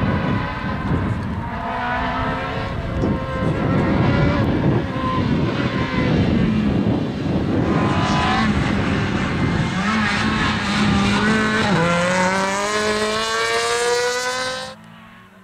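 Rally car engine revving hard and climbing through the gears, its note rising, dropping at each shift and rising again over a loud rush of tyre and road noise. The sound cuts off suddenly near the end.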